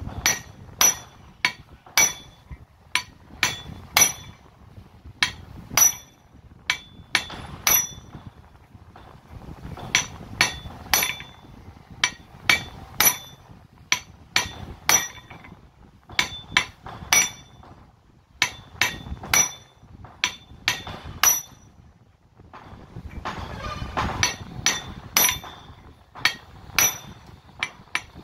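A hand hammer striking the steel shaft of a 5 kg demolition hammer's gear and barrel assembly: sharp metal-on-metal blows with a short ringing clink, about two a second in runs broken by brief pauses, knocking out a seized part.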